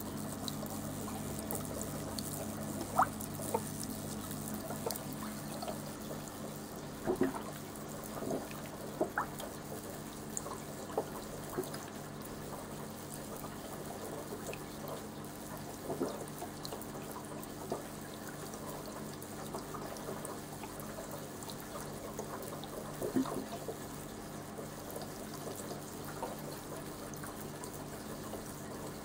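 LED ultrasonic mist maker (fogger) running in water: a steady low hum, with scattered drips and plinks of water.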